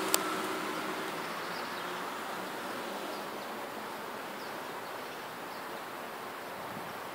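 Steady outdoor background hiss with a sharp click just at the start and a few faint, brief high chirps.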